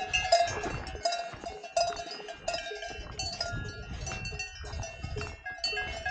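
Several cowbells on grazing cattle clanking and ringing irregularly, many bells of different pitches overlapping.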